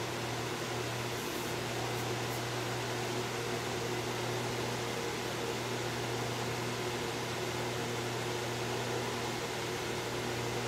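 A 2009 Massey 9-inch box fan (model MBF-909) running steadily, with a low motor hum under the rush of air from its blades. Its motor has been freshly oiled and runs smoothly.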